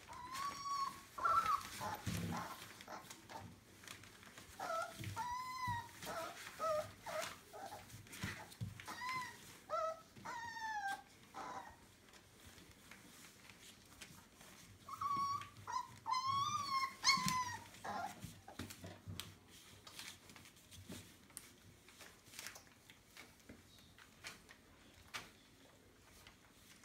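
Entlebucher puppies whimpering and squealing: high, wavering whines and yelps in bunches through the first two-thirds, then stopping. After that only faint rustling and scratching on the newspaper bedding is heard.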